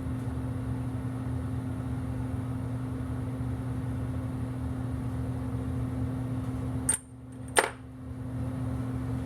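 Steady low background hum with a constant tone. About seven seconds in there are two sharp clicks about half a second apart, and the hum briefly drops out between them.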